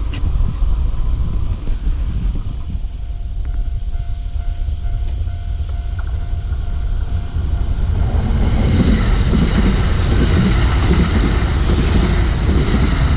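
Kintetsu electric train running over a level crossing, its running noise building about eight seconds in and staying loud, with a faint steady tone before it. Wind rumbles on the microphone throughout.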